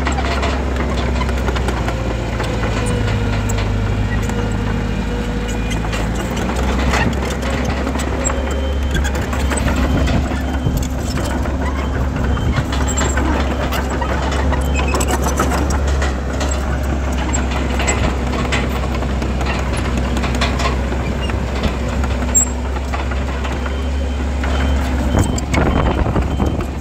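Komatsu bulldozer's diesel engine running steadily under work, its note shifting briefly a few seconds in.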